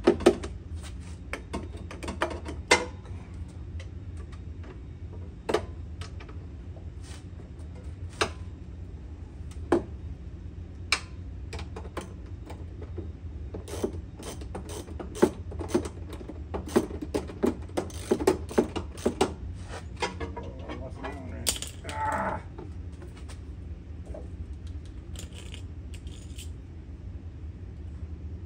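Hand tools working bolts on a mower deck: irregular sharp metallic clicks and clinks of a socket ratchet and wrench, coming thicker and quicker around the middle, with a brief scrape about 22 seconds in.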